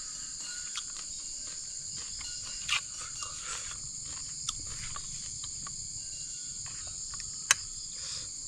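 Steady high chirring of an insect chorus, with a few scattered sharp clicks and knocks; the loudest click comes about seven and a half seconds in, and a softer knock near three seconds.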